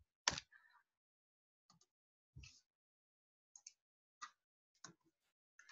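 Near silence, broken by a few faint short clicks, the first a little louder just after the start.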